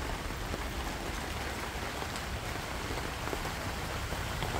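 Steady rain falling, an even hiss with scattered drops.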